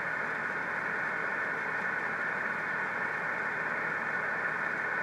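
Steady hiss of band noise from a ham radio transceiver receiving upper sideband on the 6-metre band, sharply cut off at the top by the narrow voice filter, with no voice coming through.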